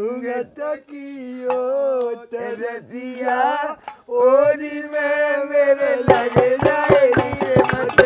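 A voice singing long, held notes of a Holi folk song; about six seconds in, a hand drum joins with quick strokes, about five a second.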